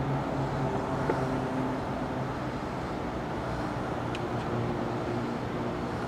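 Steady low machine hum with several droning tones, unchanging throughout, and a faint click about a second in.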